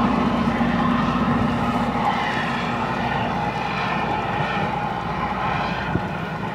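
Loram rail grinder train at work, its grinding wheels and motors on the rail making a steady roaring whine that slowly fades. A short click sounds about six seconds in.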